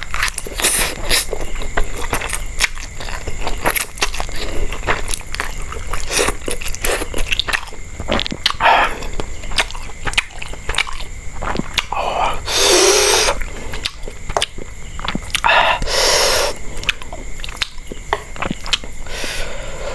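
Close-miked eating of river lobster and spicy noodles: chewing and biting with many sharp crunchy clicks, and two longer hissing bursts past the middle.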